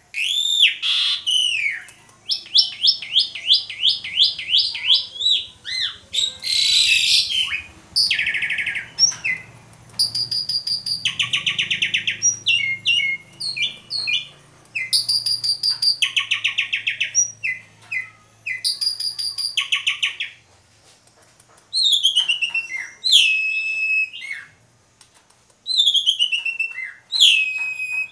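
Asian pied starling (jalak suren) singing a loud, varied song: sweeping whistles, fast runs of rapidly repeated notes and harsh rasping phrases, with short pauses between phrases.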